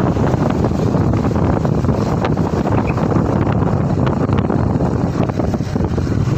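Wind buffeting the microphone on a moving motorcycle: a loud, steady rumbling rush with no distinct engine note.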